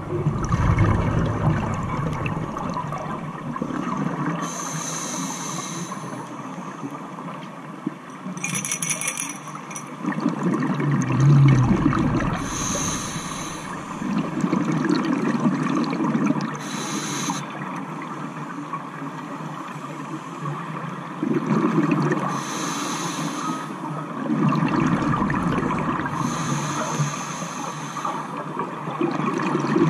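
Scuba diver breathing through a regulator underwater: a hissing inhale about every four to five seconds, each followed by a burst of exhaled bubbles.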